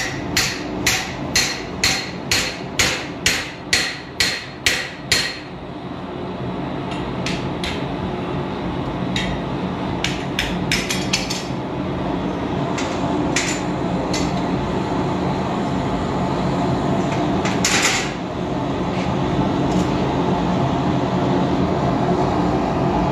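Hand hammer striking a punch held on red-hot flat bar stock on a steel anvil: about eleven ringing blows, roughly two a second, in the first five seconds, then a few lighter scattered taps. A steady low rumble runs underneath, from the lit gas forge.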